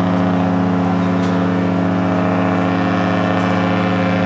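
Cruise ship Europa 2's horn sounding one long, steady, deep blast.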